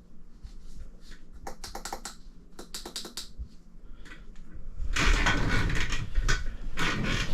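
Clusters of small, sharp clicks from the buttons of Shimano 105 Di2 shifters being pressed over and over, with no derailleur motor answering: the rear derailleur, which holds the system's control unit, is not connected. About five seconds in, a louder stretch of rustling handling noise takes over.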